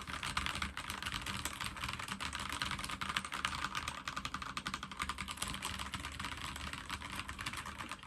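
Fast, continuous typing on a Magegee MK Star 98 mechanical keyboard with Magegee's own linear switches: a dense stream of keystrokes that stops shortly before the end.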